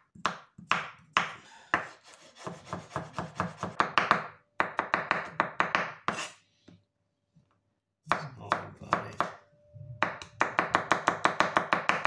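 Kitchen knife chopping garlic cloves on a wooden cutting board: rapid, rhythmic strikes of the blade on the board. It stops for about a second and a half midway, then resumes, fastest near the end.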